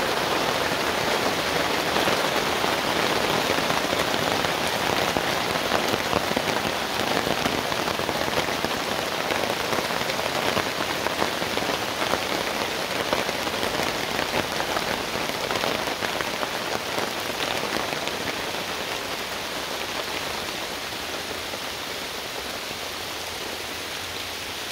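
Steady rain pattering on a tarp overhead and on the wet ground around it, a dense patter of drops that eases gradually over the last several seconds.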